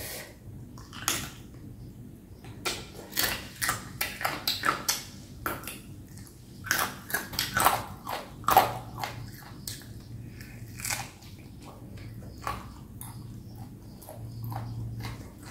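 Close-up chewing and biting of pickled deboned chicken feet: crisp crunches and wet mouth smacks. The crunches come thick and fast through the first half, then thin out to scattered ones.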